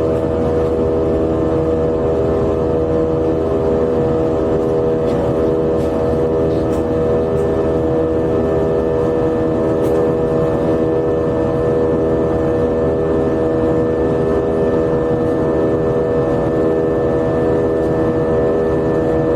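Airbus A320 jet engines running steadily, heard inside the cabin as a loud, even rush with a constant droning hum.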